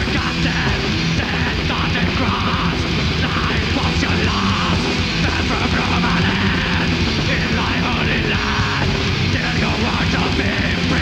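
Black metal band playing live, a loud, unbroken wall of distorted electric guitars and drums with harsh shouted vocals.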